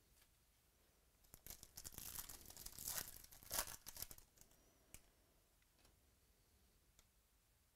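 A baseball card pack's wrapper being torn open and crinkled by hand: a burst of tearing and crinkling lasting about three seconds, loudest near its end, followed by a few faint clicks.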